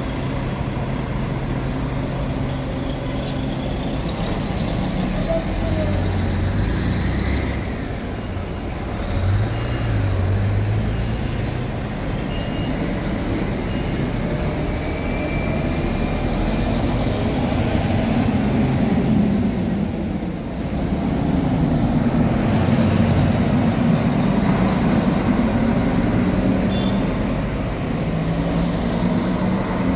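Buses and other road vehicles running in a steady traffic din, with engine pitches rising and falling now and then.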